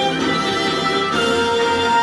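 Yosakoi dance music played over loudspeakers, led by strings in long held notes. The notes change about a second in, with a cymbal-like crash.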